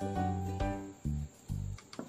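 Background instrumental music: a light tune with a bass line, new notes starting about twice a second.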